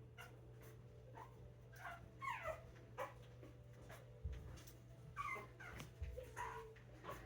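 Five-week-old puppies whimpering: a few short, high squeaks, several sliding downward in pitch, with light clicks between them.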